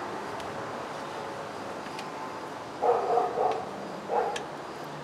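Two short, loud vocal calls: the first about three seconds in, a shorter one about a second later.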